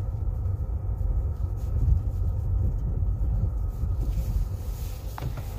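Steady low rumble of a car driving slowly over a snow-covered wooden bridge and road, heard from inside the cabin. A faint hiss joins about four seconds in.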